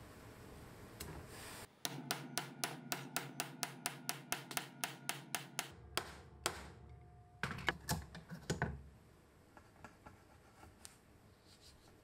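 A hammer striking a hammer-type crimping tool to crimp a copper cable lug: a quick, even run of metallic taps, about four a second, then a few harder separate blows. Faint handling sounds follow near the end.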